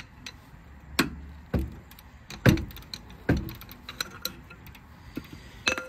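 Hand tools clinking and knocking on metal as a wrench and a ratchet with socket are fitted to a brake caliper bolt and worked to break it loose: a handful of sharp separate metal knocks, the loudest about two and a half seconds in, with light ticks between.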